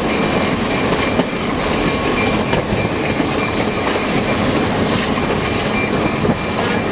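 Freight train rolling along the track, heard from aboard close beside a line of covered hopper cars: steady rumble and clatter of steel wheels on the rails.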